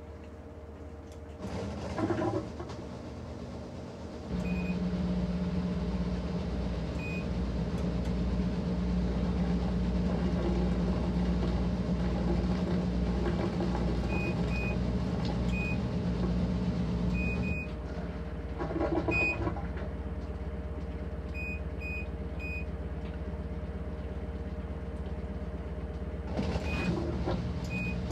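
Maytag top-load washer spinning its stainless tub, the motor running with a steady hum. The hum steps up about four seconds in and eases back a little past halfway. Three brief rushing swells rise over it, with scattered faint short high blips.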